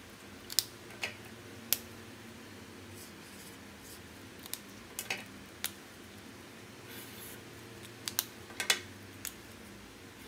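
Highlighter pens being swapped and written with: about ten sharp clicks of felt-tip caps pulled off and pushed back on as the pens change, with faint scratching of the felt tips on paper between them.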